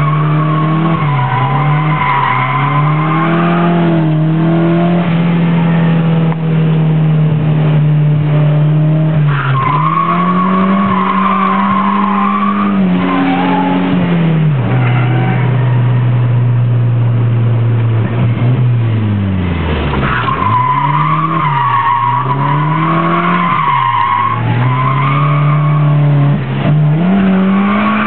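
Nissan 200SX S13 heard from inside the cabin on track: the engine revs up and down repeatedly under hard driving, with tyres squealing in three long stretches of drifting.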